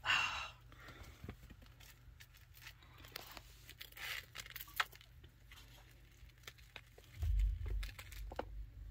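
Chinchilla gnawing a treat: scattered small crunches and clicks, with a louder rustle at the start and a low rumble from about seven seconds in.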